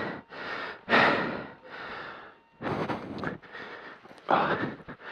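A person's heavy, fast breathing: about six loud breaths in and out, roughly one a second.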